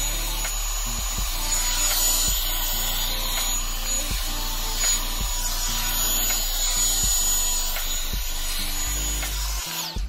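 Revlon One Step hot-air brush dryer running steadily, a rushing blast of air with a thin high motor whine, over background music. The dryer sound cuts off suddenly near the end, leaving the music.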